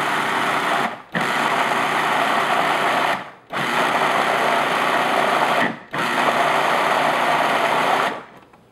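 Electric food processor puréeing thawed strawberries: the motor and blade run in four bursts of one to two and a half seconds with short breaks, and stop about 8 seconds in.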